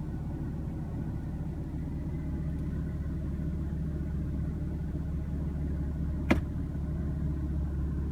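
BMW M3's twin-turbo inline-six idling steadily, heard as a low hum inside the cabin. A single sharp click about six seconds in as the gear selector is moved.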